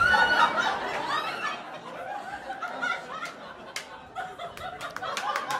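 Comedy club audience laughing at a punchline: loudest at first, dying down through the middle, then picking up again near the end with a few claps.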